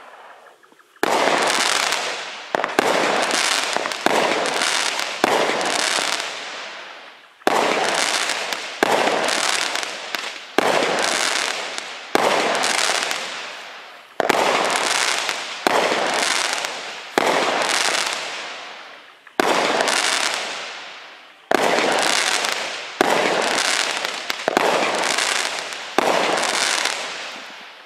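A consumer fireworks cake, a 16-shot barrage, firing its shots one after another from about a second in, roughly one every one to two seconds. Each shot is a sudden bang followed by a tail that fades over a second or two.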